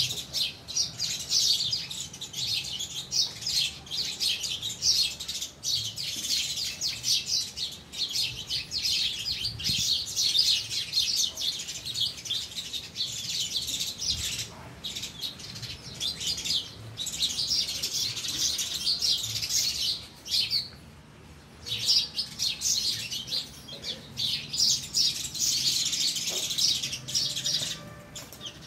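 A flock of house sparrows chirping nonstop, many high calls overlapping, with a brief lull about twenty seconds in.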